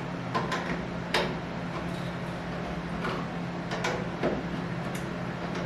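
Light clicks and knocks of shower-head parts being handled and fitted, a few scattered strokes with pauses between them, over a steady low hum.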